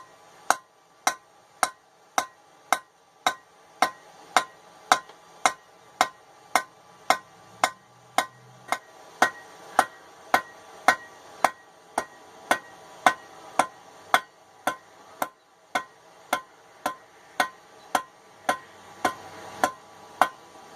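Steady hammer blows on hot 3/8-inch steel bar stock on an anvil, about two strikes a second, each with a brief metallic ring: drawing the bar out into a long taper.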